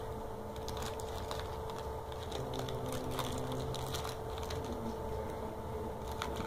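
Scattered clicks of computer keyboards and mice over a steady electrical hum with a low rumble.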